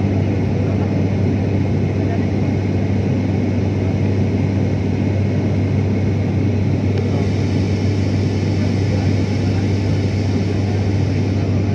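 Airliner cabin noise from a window seat in flight: a steady engine and airflow drone with a strong low hum. A higher hiss comes in about seven seconds in.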